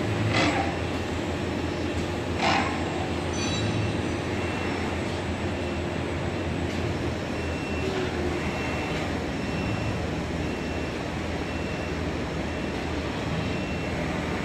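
HP-200FA six-colour pad printing machine running with a steady mechanical hum and noise. Its air cylinders give two short hisses in the first three seconds, with a fainter one shortly after.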